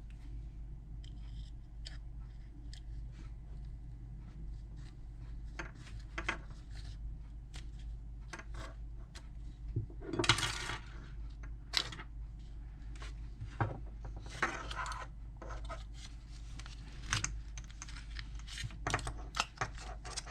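Small metal lock parts and a tool being worked by hand: scattered clicks, taps and short scrapes, with a few louder scraping rasps past the middle, while the lock assembly is freed from its housing. A steady low hum sits underneath.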